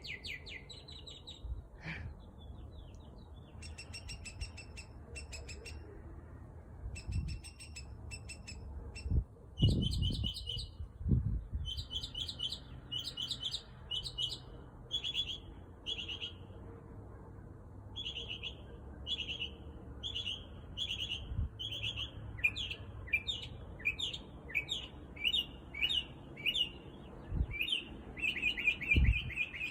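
Mockingbird singing a long, varied spring song made of short phrases, each repeated several times in quick succession before switching to a new one. A few low thumps come about ten seconds in and again near the end.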